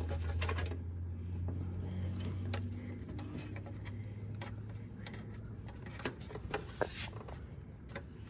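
Scattered light metallic clicks and taps of hand tools working on a golf cart's accelerator cable and linkage, over a low steady hum that fades after the first few seconds.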